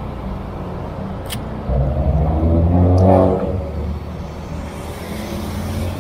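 Street traffic: a motor vehicle accelerates past, its engine rising in pitch from just under two seconds in, loudest around three seconds and fading by four, over a steady traffic rumble. A sharp click sounds a little over a second in.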